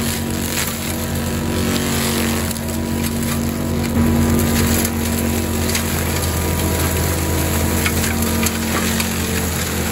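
Cat compact track loader's diesel engine running steadily under load while its Cat forestry mulcher drum spins and grinds brush into mulch, with scattered ticks of debris; it gets a little louder about four seconds in.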